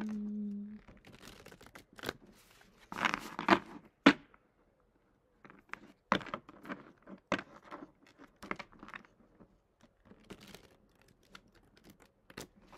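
A tarot deck being shuffled by hand: irregular bursts of rustling and sharp clicks as the cards slide and slap together. The deck is stiff and hard to shuffle. A short hummed note is heard at the start.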